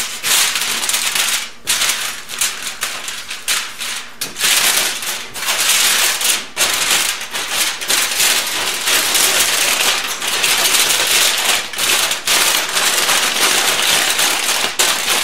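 Aluminium foil crinkling and crackling as a large sheet is lifted, folded over and pressed down by hand, a dense run of sharp crackles.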